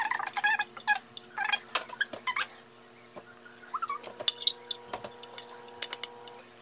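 A metal utensil clinking and scraping against a ceramic baking dish as lasagna noodles are laid in and pressed down, in a string of short clicks and clinks with a few brief high squeaks.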